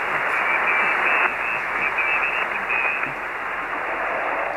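Amateur radio receiver hiss on the 20-metre band: a steady rush of static, cut off above the voice range, comes on suddenly as the channel opens with no one speaking. Faint broken whistles run through the first three seconds, and the hiss eases slightly after that.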